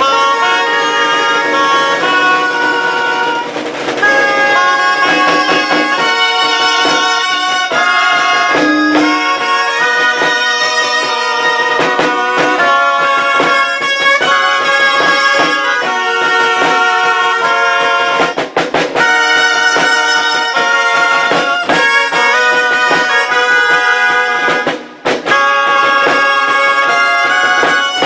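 Ensemble of gralles, Catalan double-reed shawms, playing a loud, bright tune in several parts, backed by drums.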